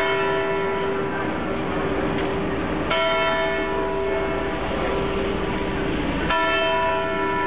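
The Zytglogge clock tower's bell struck twice, about three and a half seconds apart, each stroke ringing on long with a steady hum carrying between strokes.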